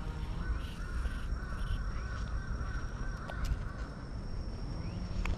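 A bird calls once in a long, warbling, wavering note lasting about three seconds, over a steady low rumble.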